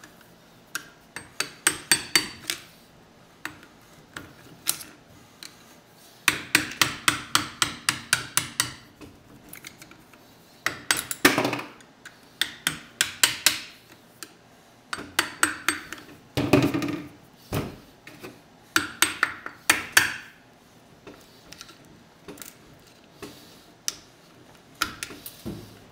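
Screwdriver knocking and prying wheel weights off a car wheel's rim: sharp metal strikes coming in quick bursts of several, with pauses between.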